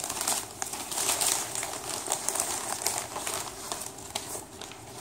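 Newspaper packing crinkling and rustling as it is pulled apart and unwrapped by hand, a dense run of crackles throughout.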